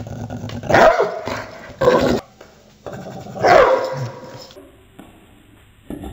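Small dog's barks and growls, slowed down so they sound deep and huge: three loud barks, each falling in pitch, with quieter growling after them.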